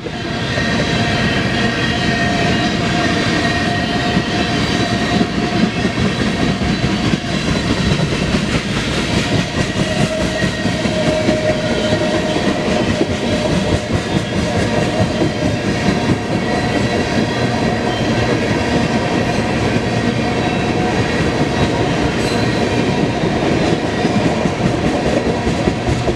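BNSF freight train rolling past, its cars' wheels clattering over the rails in a steady, continuous run of clicks, with faint steady tones above the clatter.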